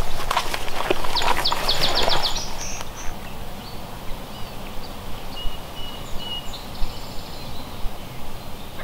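Footsteps rustling and snapping through woodland undergrowth and leaf litter for the first two and a half seconds, then stopping. Songbirds chirp and whistle throughout, including a quick run of high notes while the steps are still going.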